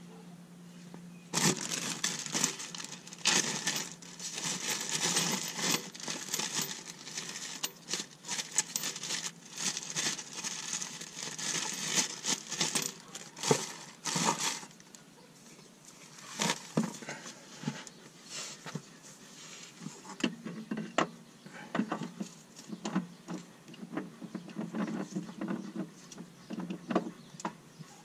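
Blue shop towel crinkling and rustling as it is rubbed and wiped for about thirteen seconds, followed by scattered light clicks and taps of metal parts being handled.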